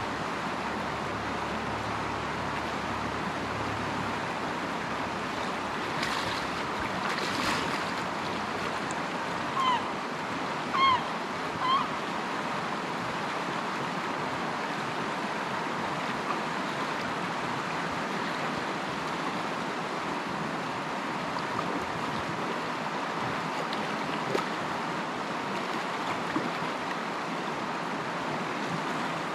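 Steady rush of a shallow, fast river running over rocks. Three short high chirps sound about a second apart near the middle.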